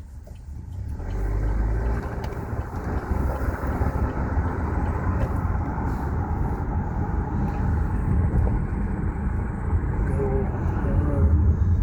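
Car driving, heard from inside the cabin: engine and road noise rise about a second in and then run on as a steady rumble.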